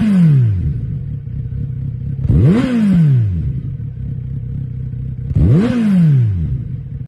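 Kawasaki Z900RS inline-four idling through a Moriwaki Monaka aftermarket muffler, blipped three times about three seconds apart. Each blip is a quick rise in revs and a slower fall back to idle.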